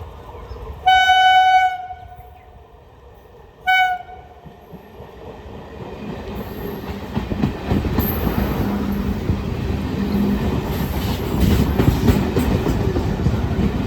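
Indian Railways electric train's horn sounding twice, a blast of about a second and then a short one, followed by the rumble of the approaching train growing louder with wheels clattering over the track.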